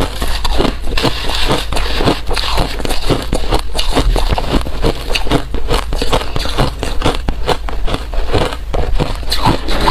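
Ice being chewed close to the microphone: a continuous run of loud crunches and sharp cracks, several a second, as the ice breaks between the teeth.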